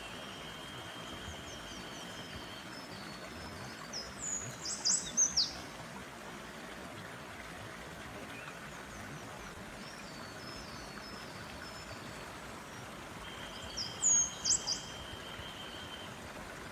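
A bird singing the same phrase twice, about ten seconds apart: a long held high note, a run of short high notes, then a few loud, sharp, falling notes. A forest stream's water runs steadily underneath.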